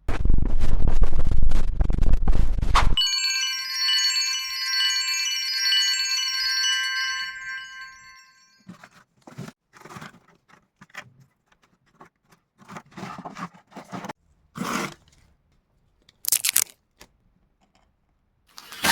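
A loud rushing noise for about three seconds, cut off by a chord of bright chime-like ringing tones that fades away over about five seconds, followed by scattered light knocks and clicks.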